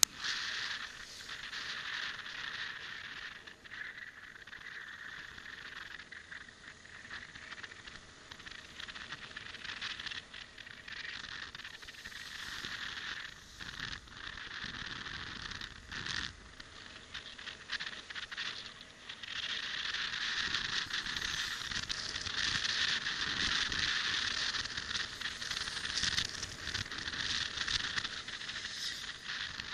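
Steady rushing and crackling wind and road noise of a motorbike ride, picked up by a small dash camera's microphone, louder from about twenty seconds in.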